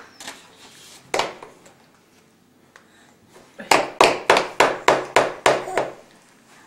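A toddler's hands smacking in a quick run of about nine sharp strikes, roughly four a second, preceded by a single sharp smack about a second in.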